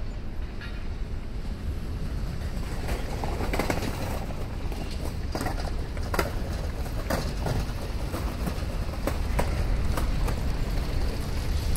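Outdoor city ambience: a steady low rumble, with irregular clicks and knocks through the middle, getting a little louder near the end.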